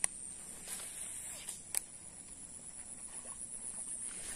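Faint outdoor ambience with a steady high-pitched insect drone. Two sharp clicks sound, one at the start and one a little under two seconds in.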